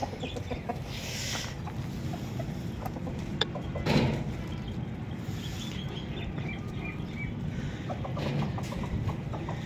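Domestic chickens clucking over a steady low noise, with a few sharp clicks and one louder knock about four seconds in.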